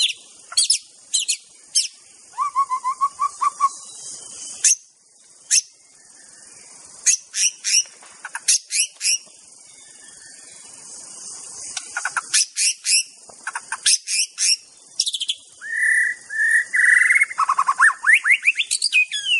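White-rumped shama (murai batu) singing: bursts of sharp, rapid whistled notes, a fast trill about two seconds in, and a loud run of whistles and quick rising notes near the end, over a steady high hiss.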